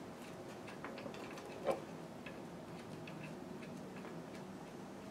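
Light, irregular metallic clicks and ticks of a bolt and hand tools being handled, with one louder knock a little under two seconds in.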